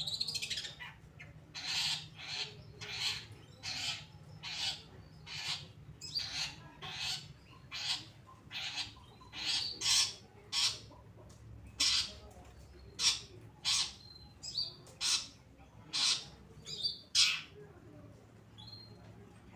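Long-tailed shrike (cendet) giving a long series of harsh, rasping calls, about one and a half a second, that break off a couple of seconds before the end.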